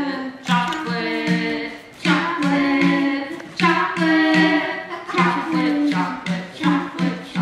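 A song with singing voices over a steady low beat, about two beats a second.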